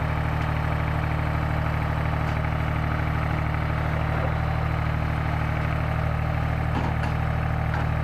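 Engine of a tracked solar pile driver running steadily at idle, with no hammer blows.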